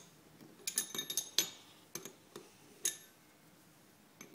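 Steel spanners clinking against the metal nose pieces of a pneumatic rivet nut tool as they are fitted: a quick cluster of sharp clinks about a second in, then three single clinks over the next two seconds.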